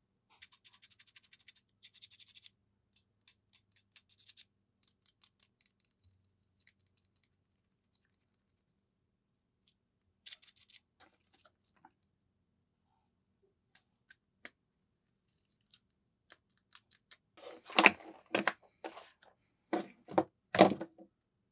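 Small plastic camera cooling fan and its spring-loaded clamp being handled: quick runs of light clicks and rattles at first, then scattered single ticks. Near the end, several louder knocks as a screwdriver, a utility knife and the fan are set down on a tabletop.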